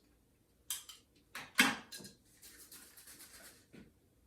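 Short clicks and knocks of objects being handled, the loudest a sharp knock about a second and a half in, followed by faint rustling and small clicks.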